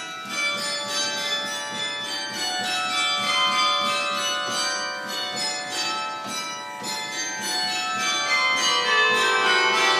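The Duke Chapel carillon played by hand from its baton keyboard: a tune of single bell strokes whose ringing tones overlap and hang on. Lower, louder bells come in near the end.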